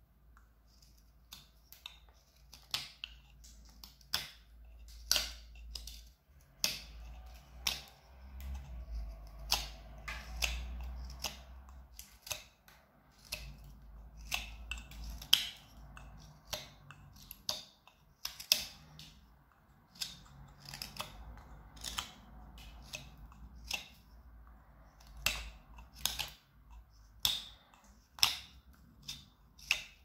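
Carving knife slicing shavings off a small wood branch: a run of irregular sharp cuts, about one or two a second.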